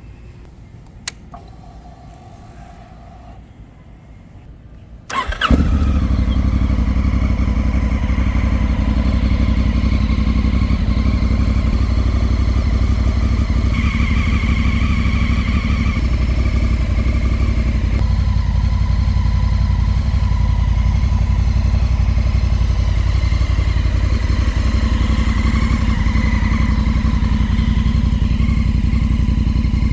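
Honda CRF1000L Africa Twin's parallel-twin engine, breathing through an aftermarket Akrapovič exhaust, starts about five seconds in and then idles steadily. Before it catches there is a single click and a short faint hum.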